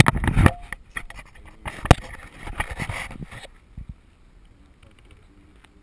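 Handling noise on an action camera: scraping, rubbing and clicks on its housing and mount as it is moved, with a sharp knock about two seconds in. The handling stops about three and a half seconds in, leaving only faint background.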